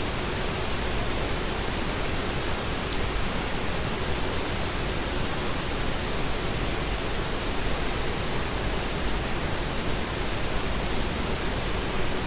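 Steady hiss of background noise, even and unchanging, with a faint low hum under it.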